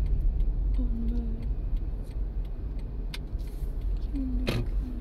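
Steady low rumble of street traffic, with a few faint clicks and a sharp click about four and a half seconds in.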